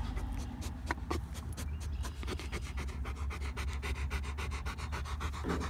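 A Rottweiler panting rapidly in a quick, even rhythm of several breaths a second, still worked up and not yet settled. A steady low hum runs underneath.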